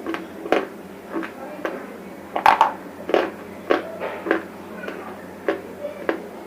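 Dry chips of soaked-and-broken colored bars crunching in a series of sharp, separate cracks about twice a second, the loudest about two and a half seconds in.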